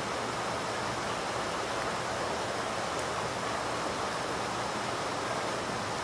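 Small river running fast over rocks: a steady, even rush of water.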